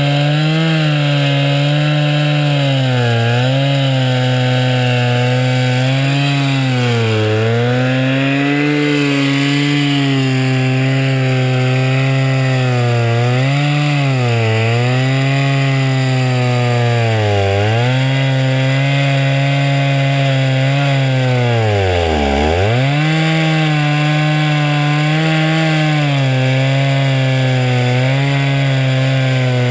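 Two-stroke chainsaw running at high revs under load as it rips lengthwise through a spruce log on a homemade sawmill. Its pitch sags several times as the cut loads it, bogging down deepest about two-thirds of the way through before recovering.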